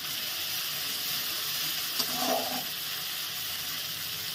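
Ground cumin-and-red-chilli paste sizzling steadily in hot mustard oil in a wok, with the oil separated from the paste: the frying of the masala is done. A short knock about two seconds in.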